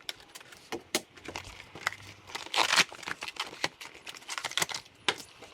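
Irregular crinkling and rustling as new folding mountain-bike tyres are handled and unfolded to work the creases out, with scattered sharp clicks and a louder burst of rustling about two and a half seconds in.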